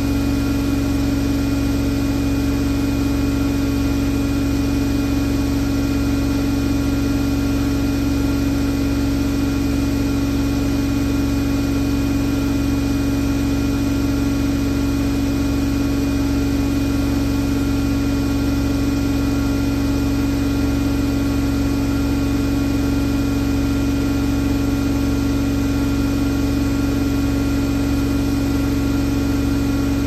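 Hoover Nextra top-loading washing machine spinning steadily at high speed: a constant-pitched motor drone over a low drum rumble and hiss, holding the same speed throughout.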